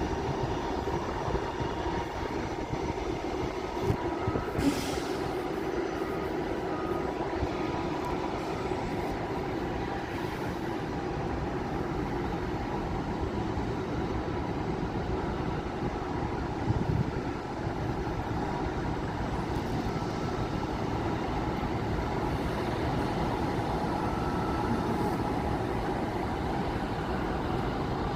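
A steady engine drone with no rise or fall, broken by brief knocks about four seconds in and again about seventeen seconds in.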